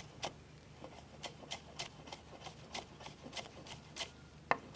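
Kitchen knife chopping pandan leaves on a wooden cutting board: quick, even knocks at about four a second, with one louder knock near the end.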